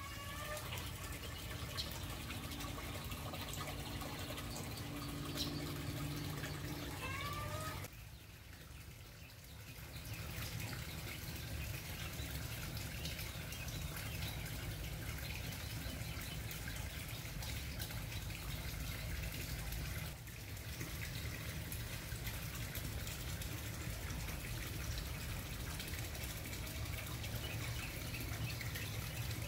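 Steady trickling, water-like background noise over a low rumble, with a couple of short rising bird calls in the first seven seconds.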